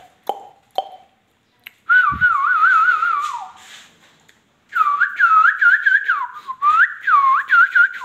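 Indian ringneck parakeet whistling: two long warbling whistled phrases with quick wobbles in pitch, the second with several swoops down and back up, after a few short clicks in the first second.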